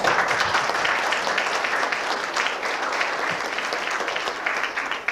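Audience applause: many people clapping together, loud and even, cutting off suddenly at the end.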